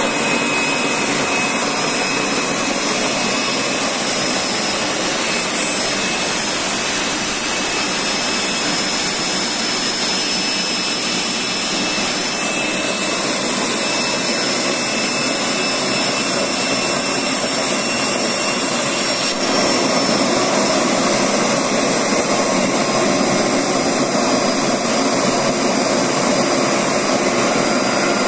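Micro turbojet engine spinning with a steady rush of air and a thin high-pitched turbine whine, while compressed air from a blow gun is blown into its intake to spool it up. About two-thirds of the way through the sound steps up louder and the whine changes pitch.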